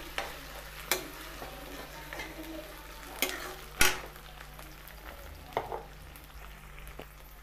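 Onions, green chillies and peas frying in oil in a metal kadhai, a light sizzle under a spatula stirring and scraping the mix. A few sharp knocks of the spatula against the pan, the loudest a little past the middle.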